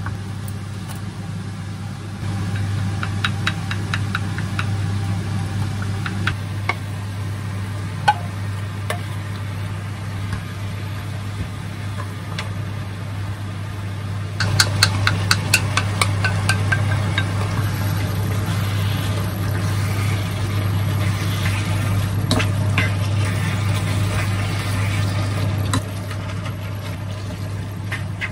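Steady low electrical hum from an induction hob, stepping up a couple of seconds in and back down near the end. Over it, a wooden spatula taps quickly against a small metal bowl while sauce is mixed, and later against a frying pan while meat and vegetables are stirred.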